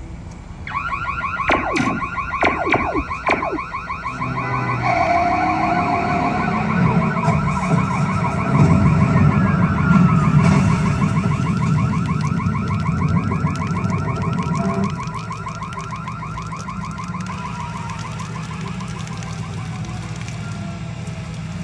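Fire-engine siren sound effect played over a speaker, a rapid warbling wail that starts a moment in and carries on steadily. A few sharp clicks come in the first few seconds, and a low rumble sits underneath through the middle stretch.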